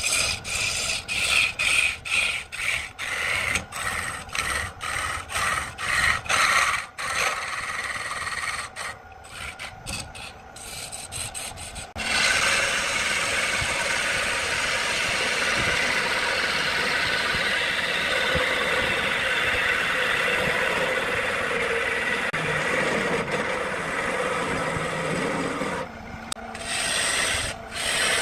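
Gouge cutting a spinning cedar log on a wood lathe: a rasping scrape as shavings peel off. For the first twelve seconds or so it comes in short repeated strokes with gaps between them. Then it settles into one continuous cut, broken briefly a few times near the end.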